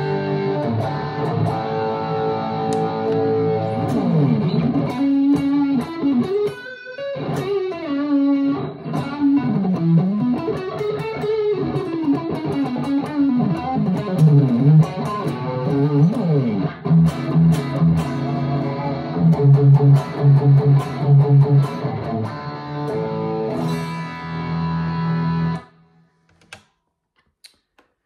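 Amplified 2023 PRS Special Semi-Hollow electric guitar playing single-note lead lines, with bent notes and quick repeated notes. The playing cuts off suddenly a few seconds before the end, leaving near silence and a couple of faint clicks.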